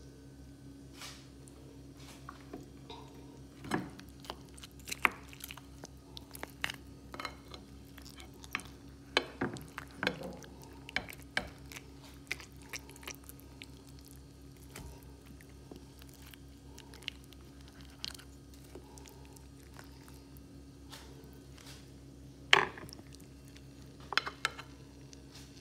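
Close-miked eating of baked chicken and vegetables: chewing and wet mouth sounds, with scattered sharp clicks of cutlery on a plate over a steady low hum. The sounds are busiest in the first half, and the loudest single click comes near the end.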